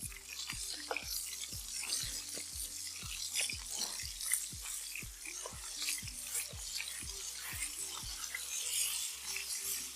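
Food sizzling and crackling as it cooks over a fire, with a steady spatter of small crackles and pops throughout.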